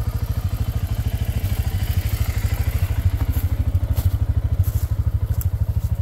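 Arctic Cat ATV engine idling with a steady, rapid low putter. A few light clicks come in the second half.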